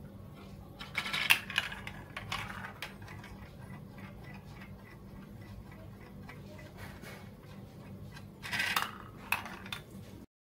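A marble rolling through a plastic building-block marble run, clicking and clattering along the tracks and funnels, with loud clusters of clatter about a second in and again near the end.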